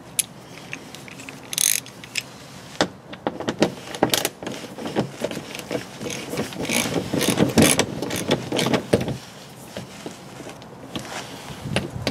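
Ratchet wrench clicking in quick runs, densest in the middle stretch, as the 10 mm bolts holding the plastic engine undercover are loosened.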